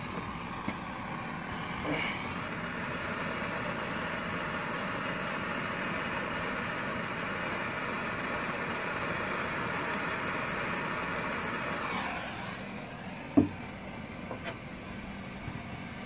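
Self-lighting propane hand torch burning with a steady rushing hiss as it heats an MC4 connector pin to melt the solder inside. It grows louder about two seconds in and is shut off about twelve seconds in, followed soon after by a single knock.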